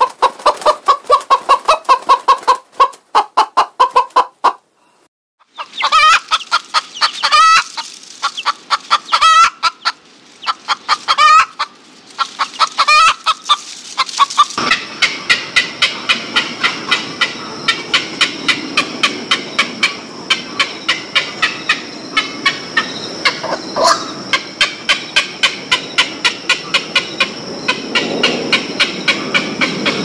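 A domestic hen clucking in quick runs, with a short pause about four seconds in. About halfway through it gives way to a different steady hissing sound with a high tone and about three clicks a second.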